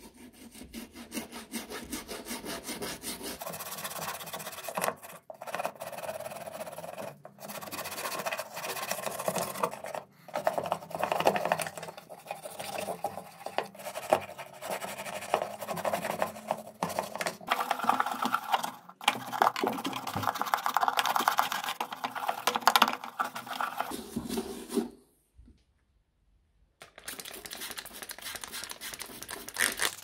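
Toothbrush bristles scrubbing the plastic compartments of a washing machine detergent drawer: fast, rasping back-and-forth strokes with a few short breaks. It stops for about two seconds near the end.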